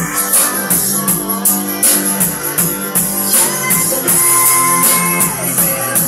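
Recorded dance-mix music with a steady beat, played loud through a stacked pair of Konzert SG series speaker cabinets during a sound check.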